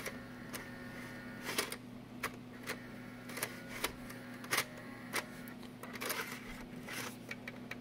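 Caddy-loading mechanism of an Apple CD 300 CD-ROM drive, cover off, clicking roughly every half second to second over a steady hum and a faint motor whine as a disc caddy is pushed in. The drive fails to take the caddy because of a fault in the loading mechanism.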